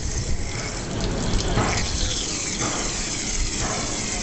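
Water gushing out of a heat exchanger tube and splashing onto the tube sheet as the tube is flushed during cleaning, swelling in surges about once a second over a steady low rumble.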